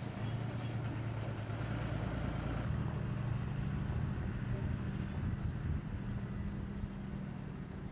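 Steady low hum of an idling engine, with a slight change in its tone about three seconds in.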